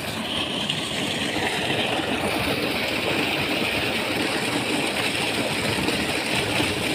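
Steady rush of water pouring from a 6-inch pipe outlet, over a Massey Ferguson 275 diesel tractor running easily at low revs to drive the pump.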